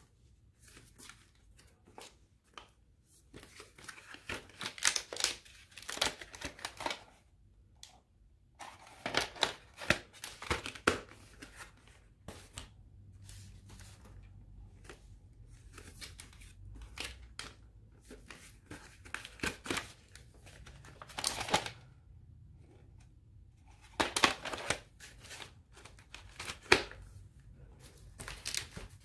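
Plastic clamshell VHS cases being handled and swapped: scattered rustling, scraping and clicking in several bursts with quiet gaps between them.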